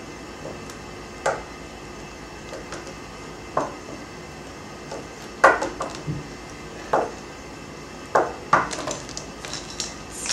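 Littlest Pet Shop plastic figurines being picked up and set down, making a scatter of light clicks and knocks on a hard surface at irregular intervals.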